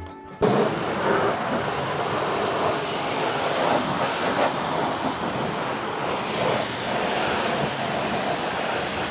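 Pressure washer jet spraying water, a loud steady rushing hiss that starts abruptly about half a second in.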